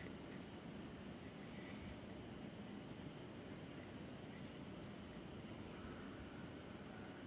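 Cricket chirping: a faint, steady, high-pitched trill of rapid even pulses over low background hiss.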